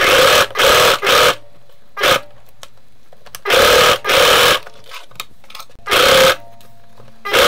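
Electric sewing machine stitching through felt in short stop-start runs, each under a second long, with brief pauses between them.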